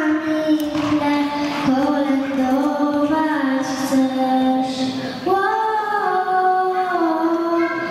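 A young girl singing a Polish Christmas song solo into a handheld microphone, in long held notes that step up and down in pitch.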